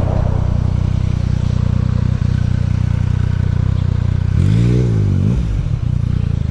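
Yamaha MT-09's inline three-cylinder engine idling steadily, then a quick throttle blip about four and a half seconds in, the revs rising and falling back within a second.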